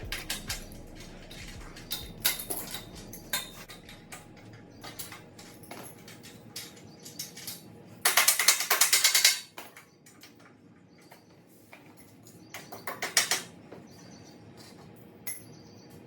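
Metal parts and tools clinking and clattering as a weight machine is assembled, with a loud run of rapid clicks about halfway through and another shorter one near the end.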